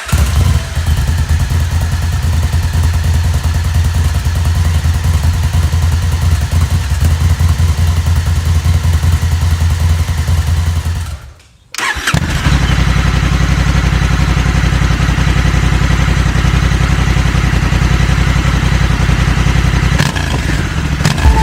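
Honda CRF1100L Africa Twin's parallel-twin engine running steadily through its stock exhaust. The sound breaks off briefly near the middle, then picks up again unchanged.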